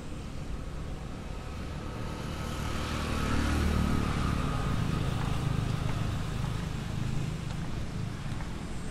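A motor vehicle's engine, unseen, growing louder about three seconds in and then running on as a steady low hum.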